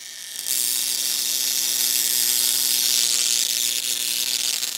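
Handheld high-voltage spark wand running with a steady electric buzz and hiss that starts about half a second in. Its discharge is arcing across a small gap to the tip of an insulated screwdriver bit.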